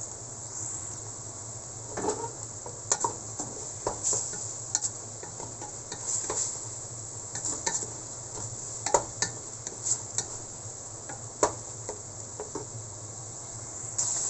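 Ground pork with onion and garlic sizzling in a stainless steel pot while it is stirred, with irregular scrapes and clicks of the stirring utensil against the metal. The meat's released juices are cooking off as it dries out.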